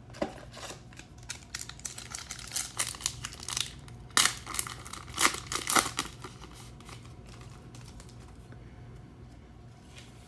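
Trading-card pack wrapper being torn open and crinkled: a run of sharp crackles that is busiest and loudest around four to six seconds in, then dies away.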